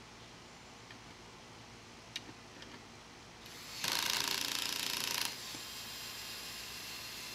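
Power drill driving a screw into the smoker's leg hardware, running in one burst of about a second and a half after a few small clicks.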